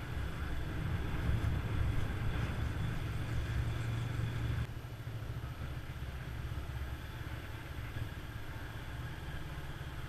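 Motorcycle engine running as the bike rides along; the engine sound drops to a quieter level a little under halfway through.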